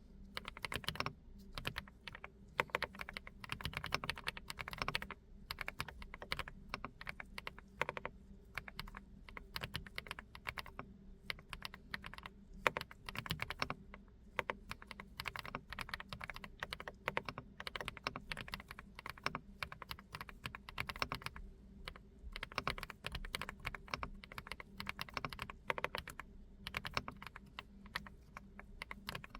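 Typing on a GX87 Haop Bronze aluminium custom mechanical keyboard with SPM Hibiscus switches, recorded through a smartphone microphone: a continuous run of quick, uneven keystrokes.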